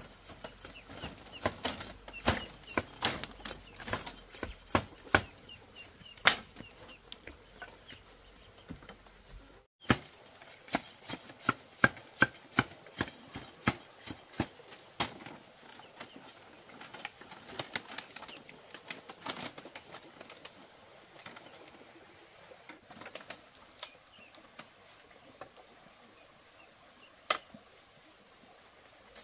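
Hand tools striking and chopping bamboo: a string of irregular sharp knocks, thick at first, with a short break about ten seconds in, then a burst of strikes and sparser knocks later.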